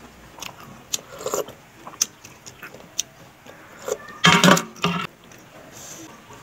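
Eating sounds: chewing and scattered light clicks of a metal spoon and fork against the plate. A louder mouth noise comes about four seconds in.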